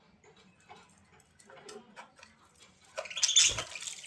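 A bird moving about with small clicks and faint chirps, then a louder rustling burst about three seconds in, with a thump.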